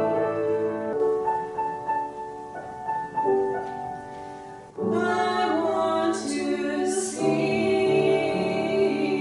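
Music with singing voices on long held notes. It thins out and quietens midway, then comes back fuller just before five seconds in.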